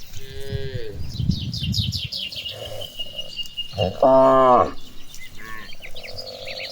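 Cattle mooing: a short moo that falls in pitch just after the start, then a louder, longer moo about four seconds in. Birds chirp throughout.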